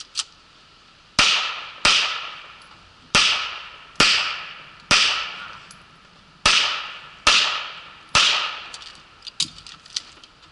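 Eight handgun shots fired at an uneven pace over about seven seconds during a practical-shooting stage, each trailing off in a long echo. A few lighter clicks and ticks follow near the end.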